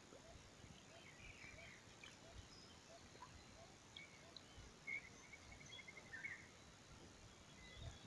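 Near silence with a lined seedeater ('bigode') singing faintly: scattered high chirps and a short rapid trill about five seconds in.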